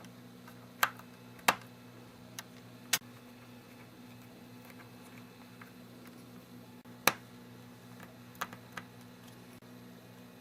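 Scattered sharp clicks and taps of small hand tools and tiny screws on the iPod Touch's internal plate and frame as 1.6 mm screws are being fitted: four louder clicks in the first three seconds, one at about seven seconds and a couple of fainter ones near the end, over a steady low hum.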